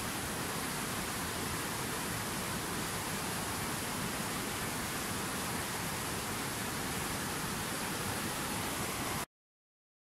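Steady rushing of a fast mountain river's whitewater over rocks, an even roar of water noise that cuts off suddenly near the end into silence.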